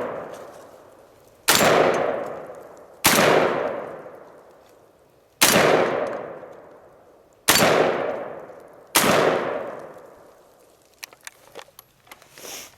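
Akdal MKA 1919 semi-automatic 12-gauge shotgun firing five shots in quick succession, spaced about one and a half to two seconds apart. Each shot leaves a long echoing decay, and the action cycles reliably from shot to shot.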